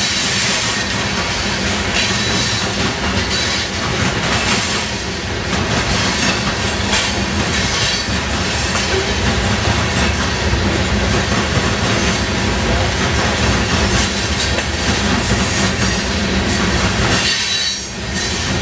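Hopper cars of a CSX freight train rolling past: a steady rumble and clatter of steel wheels on the rails, with a thin wheel squeal above it.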